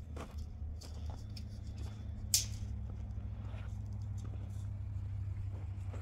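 A vehicle engine idling with a steady low hum, with a few sharp clicks and knocks over it, the loudest about two seconds in.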